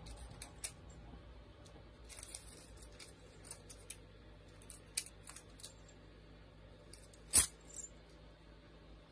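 Scattered small clicks and rustles as a cat paws at a string toy on a floor mat, with one sharp click about seven seconds in.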